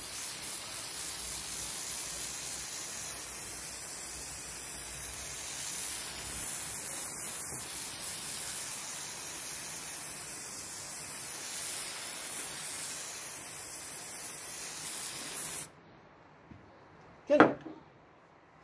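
Aerosol can of graphite oil spraying in one long continuous hiss over a hedge trimmer's blade teeth, lubricating them. The spray stops abruptly, and a single sharp knock follows near the end.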